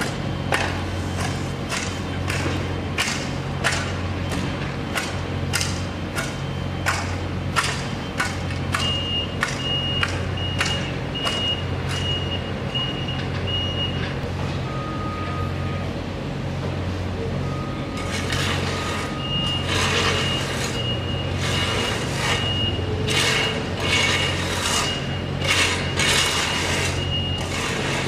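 Construction machinery at work: an engine running steadily under irregular sharp metal clanks and knocks. A vehicle's backup alarm beeps at a steady pace in two stretches, the first about a third of the way in and the second longer one from about two thirds of the way in almost to the end.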